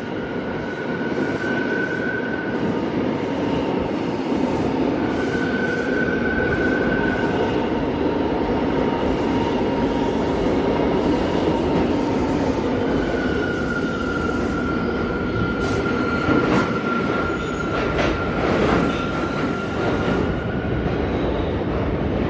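NYC Subway R179 train running by with a steady rumble, sounding its horn in three high steady blasts, the last held for several seconds. Sharp clacks from the wheels come during the long blast.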